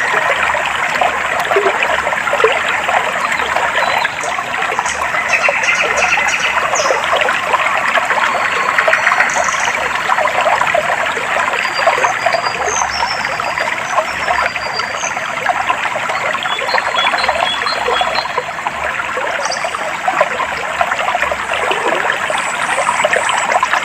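Shallow stream of clear water trickling and babbling steadily, with short, faint, high bird calls now and then.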